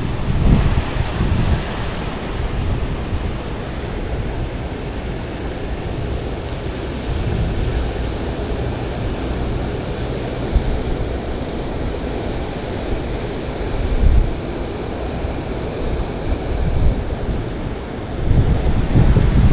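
Wind buffeting the microphone outdoors over a steady rushing noise, with a few stronger low rumbling gusts: about a second in, once midway and again near the end.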